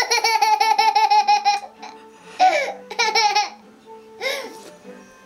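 A toddler laughing into a toy recorder, so that its high held note wobbles rapidly with each pulse of laughter: a long burst at the start and a shorter one about three seconds in, with short bursts of the child's open laughter between.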